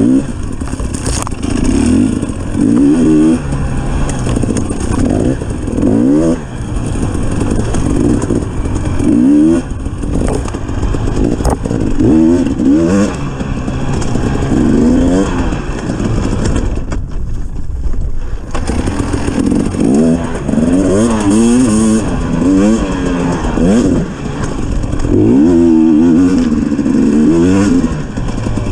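A 250 cc enduro dirt bike engine revving up and dropping back again and again as the throttle is worked, with a brief lull about two-thirds of the way in.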